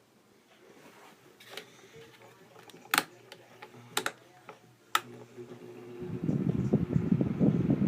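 A few sharp clicks, then about six seconds in a Honeywell fan with worn bearings starts up, its motor and airflow noise rising quickly into a loud, rough rush.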